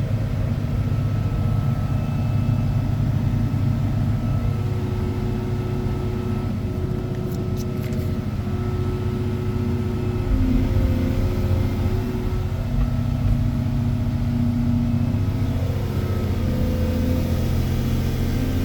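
Volvo EC220EL crawler excavator's diesel engine running steadily, with higher tones above it that shift and change from about ten seconds in.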